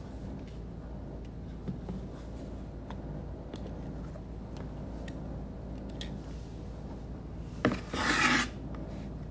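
A plastic dental typodont (model jaw) knocks onto a fibreboard surface and scrapes across it for about half a second, near the end, over a low steady room hum.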